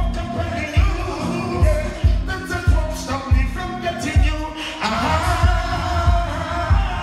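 Live dancehall reggae through a PA: a backing track with a heavy, steady bass beat and a man singing over it into a handheld microphone, his voice clearer from about five seconds in.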